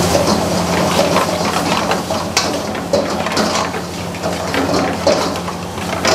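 A steel ladle scraping and clinking against a steel frying pan as pasta is stirred and tossed through a thick sauce, in irregular clatters over a steady low hum.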